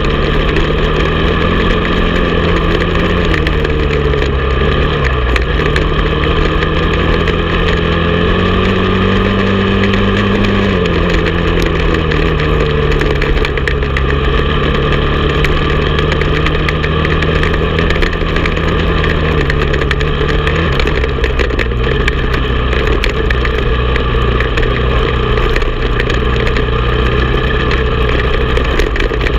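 Honda TRX450 sport quad's single-cylinder four-stroke engine running hard while riding a dirt trail. Its pitch rises and falls with the throttle, climbing about eight seconds in and dropping back a few seconds later.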